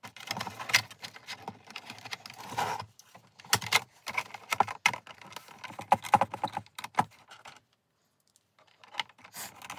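Black plastic housing of a small LED moving head light being handled and fitted back together on a bench: a busy run of light plastic clicks and knocks that stops for about a second near the end, then a few more clicks.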